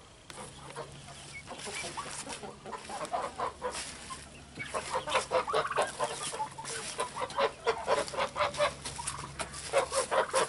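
Domestic chickens clucking in a coop, many short irregular clucks overlapping, thickest in the second half.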